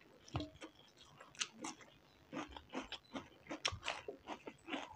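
Two people chewing hand-fed Maggi masala instant noodles: a quick, irregular run of faint, wet mouth clicks.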